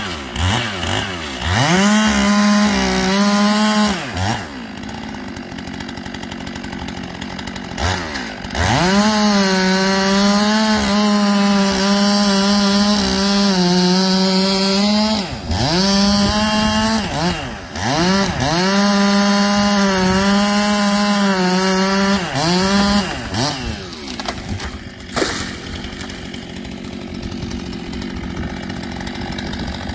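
Stihl two-stroke chainsaw making a felling cut through an ash trunk. It runs at full throttle in several bursts, the longest about six seconds, and drops back to idle between them. It idles through the last several seconds once the tree is down.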